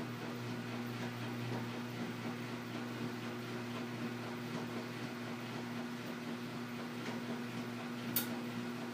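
Washing machine running through its cycle: a steady motor hum with a low, even drone. One sharp click sounds near the end.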